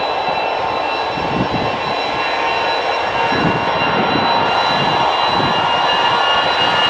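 Airliner engines running loudly: a broad steady rush with several high whining tones held throughout, over a wavering low rumble.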